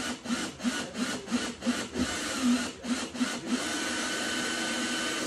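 Hand sawing: quick back-and-forth strokes, about three a second. About three and a half seconds in, the strokes give way to a steady rushing noise with a thin whine.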